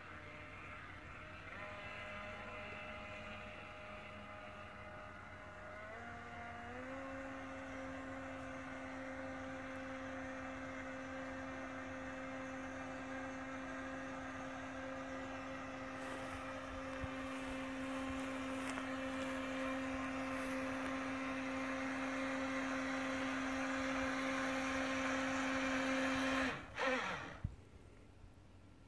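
RC jet boat's motor whining at a steady pitch; the pitch steps up twice in the first seven seconds, then holds while the whine grows louder, and drops away suddenly near the end.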